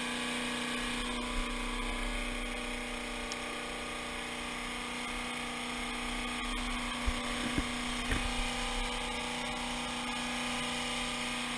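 Steady hum of a motor on a bowfishing boat, running at a constant pitch, with a few light knocks about seven and eight seconds in.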